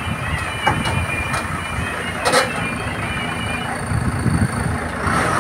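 Electric power wire shorting against an overloaded truck of paddy sacks, arcing on the ground under the truck in a steady crackle, with sharper snaps about a second and two seconds in.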